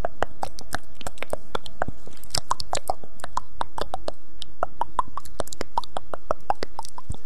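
A fast, even run of sharp clicks close to the microphone, about six a second.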